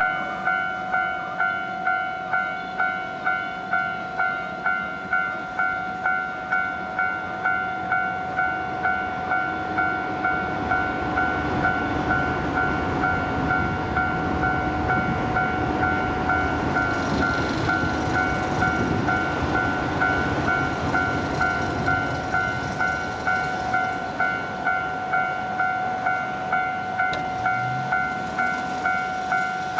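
Japanese level-crossing warning bell ringing in an even electronic ding at about one and a half strokes a second. A train passes through the crossing with a rushing rumble, from about ten seconds in to about twenty-four seconds in.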